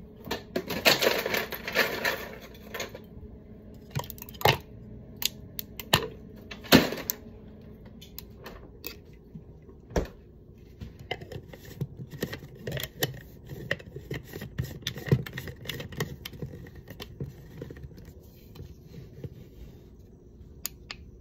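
Scattered light clicks, knocks and scrapes of ice and a tall drink bottle being handled, with a short rushing burst about a second in.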